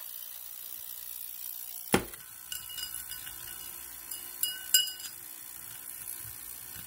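A knock about two seconds in, then a run of light clinks with a short ring, the loudest two near the five-second mark: small jewelry pieces being handled against a glass dish.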